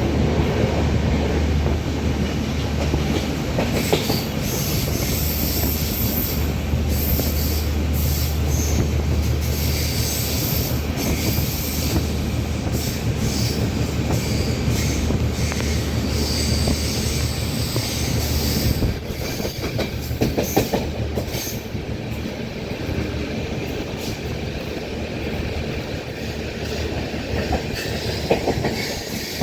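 Passenger train running, heard from a coach window: wheels rumbling and clattering on the rails, with on-and-off high-pitched squealing of the wheels. The deep low rumble eases about two-thirds of the way through.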